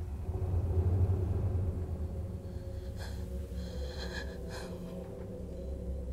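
Film soundtrack of a frightened woman breathing heavily and gasping over a low, steady rumble.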